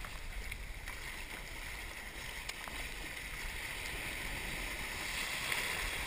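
Shallow surf breaking and washing around a camera sitting at the waterline, a steady rushing wash with water splashing right at the microphone and a couple of faint clicks.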